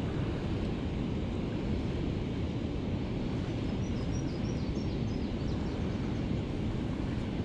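Steady low rush of river water churning below a dam, mixed with wind buffeting the microphone.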